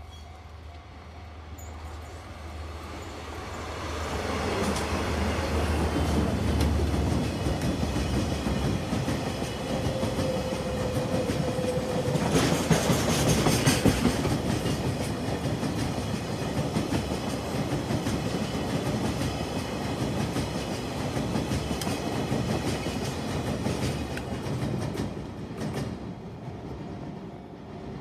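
Diesel-hauled freight train passing close by: a low drone from the DD51 and DF200 diesel locomotives as they approach and go by, then a long steady rumble and clickety-clack of tank-wagon wheels over the rail joints, easing off near the end.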